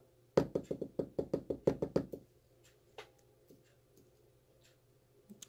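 A quick run of about a dozen sharp, light knocks, some seven a second for under two seconds, then a few single clicks. They come from the metal parts of a disassembled Yale-style pin-tumbler lock being worked with tweezers over a wooden pinning tray.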